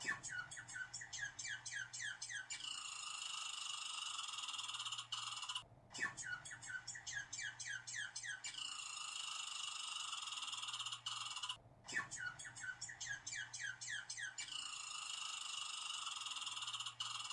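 Squirrel chattering: a quick run of short falling chirps, about five a second for two seconds, over a steady high buzzing background. The same stretch plays three times with short breaks between.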